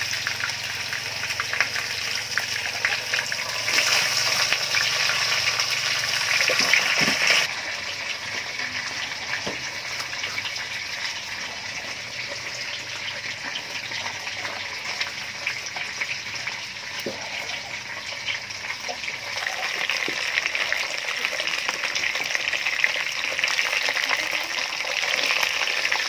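Whole fish frying in hot oil in a wok over a wood fire: a steady sizzle with fine spattering crackles. It is louder for a few seconds, drops suddenly about seven seconds in, and builds up again near the end.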